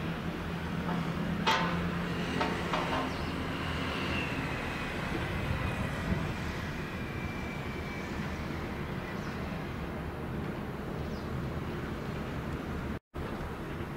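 Steady low mechanical rumble of the Coast Guard training ship Kojima (PL21) getting under way. There is one sharp clank about a second and a half in, a few lighter knocks after it, and a faint high whine that fades over several seconds. The sound drops out for a moment near the end.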